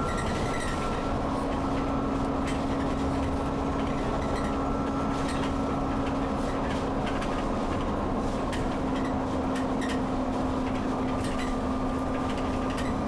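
Alexander-Dennis Enviro 400 double-decker bus running steadily, heard from inside the passenger cabin: continuous engine and road noise, with a steady hum that sets in about a second in and faint rattles.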